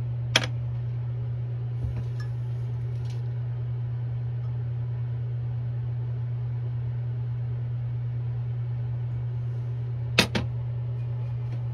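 A steady low hum throughout, broken by a sharp metallic click just under half a second in and a quick double clack about ten seconds in, as the aluminium swimbait mold halves are handled.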